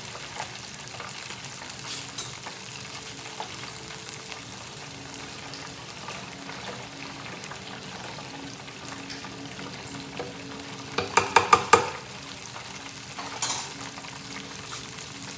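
Oil sizzling steadily in a deep fryer, with a quick run of about six sharp clicks around eleven seconds in and one more shortly after.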